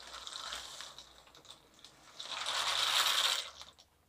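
Dry macaroni poured into a pan of boiling water, a dense rattling, splashing patter in two pours: a lighter one at the start and a louder one about two seconds in.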